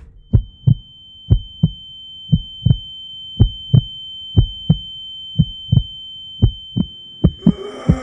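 Heartbeat sound effect: paired low thumps, about one pair a second, under a steady high-pitched ringing tone. The ringing stops shortly before the end.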